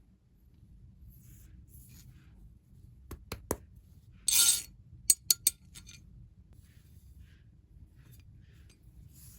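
Sharp metallic clinks from handling the parts of a metal sword replica: a few light clicks, a short scraping rasp, then three quick sharp clinks.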